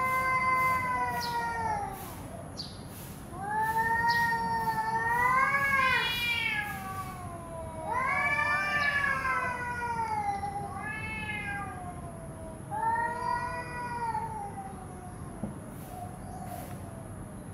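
Domestic cats yowling in a face-off: about five long, drawn-out calls that waver up and down in pitch, the kind of caterwauling cats make in a tense standoff.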